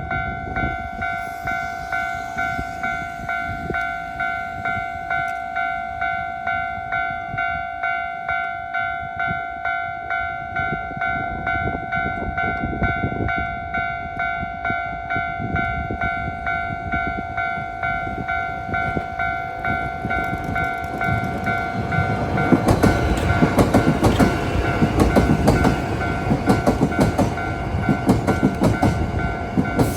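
Japanese level crossing's electronic warning bell ringing in a steady rhythm, about two dings a second. From about 22 seconds in, a Hankyu 8300 series electric train passes over the bell, its wheels clattering over the rail joints and growing louder.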